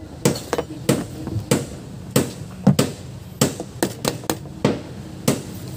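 Sharp, irregular knocks and taps of hand tools on the metal housing of a truck clutch booster being taken apart, about two or three a second.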